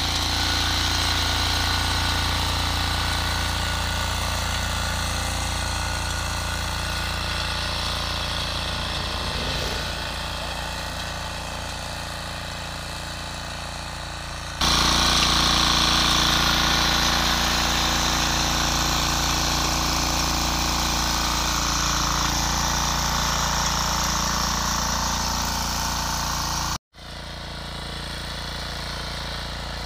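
Husqvarna 545D power tiller's engine running steadily under load as its rotating tines churn hard, compacted soil. The sound shifts abruptly about halfway through and again near the end.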